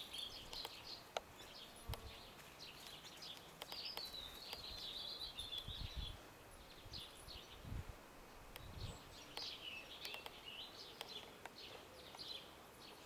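Songbirds singing faintly: warbling, chirping phrases come and go, the longest about four seconds in and again near ten seconds, with scattered small clicks.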